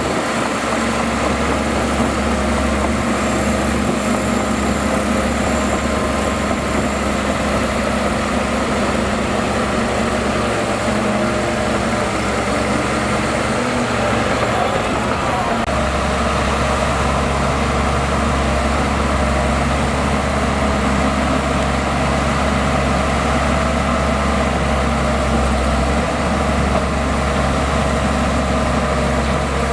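Heavy diesel engine of earthmoving equipment running steadily. About halfway through, the low part of its sound grows stronger and stays that way.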